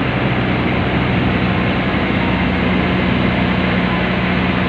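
Boat engine running steadily under way, heard from on deck as an even low hum.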